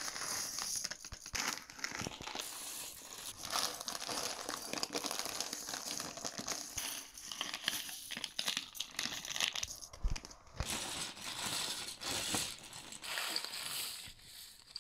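Thin clear plastic bags of mini building bricks crinkling and rustling as they are opened and handled.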